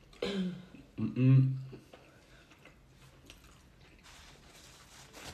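People chewing mouthfuls of arepa, with two short closed-mouth voice sounds in the first two seconds, the louder one about a second in; after that only faint chewing.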